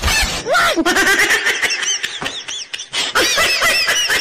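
High-pitched, squeaky giggling: a run of short rising-and-falling squeals with little clicks between them.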